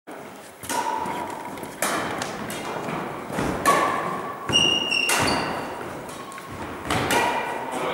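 Badminton rackets hitting a shuttlecock and footfalls on a wooden gym floor: a series of sharp knocks, each ringing briefly in the hall, with a few short squeaks in between.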